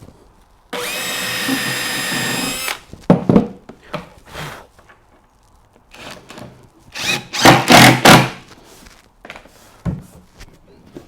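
Cordless drill pre-drilling through a wooden stair tread into the support block beneath: a steady whine for about two seconds, then several shorter, louder bursts of drilling with knocks of timber.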